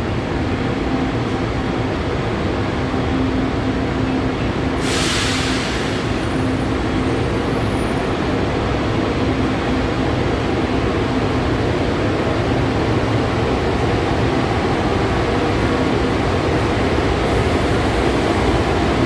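Tze-Chiang express train in the station: steady rumble of the train with a low steady hum, and a short hiss of air about five seconds in.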